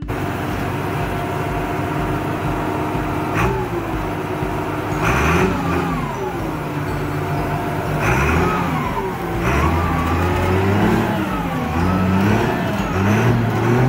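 Turbocharged Cummins NTA-855 inline-six diesel of a 1987 Dresser 550 wheel loader running as the machine drives and turns. It runs steadily at first, then from a few seconds in revs up and down over and over, about once every second or two.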